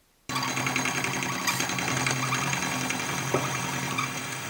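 Benchtop manual milling machine running, its end mill cutting a 3D-printed 316L stainless steel bar: a steady motor hum under a dense rasp of metal cutting. It starts suddenly a moment in.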